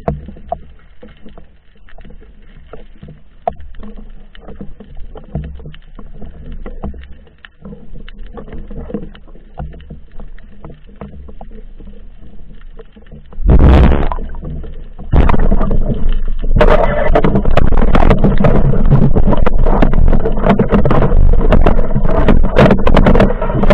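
Water lapping and knocking lightly against a speargun-mounted underwater camera at the surface. About 13 seconds in there is a loud splash as the diver duck-dives. It is followed by loud, steady rushing water with crackling as he descends underwater.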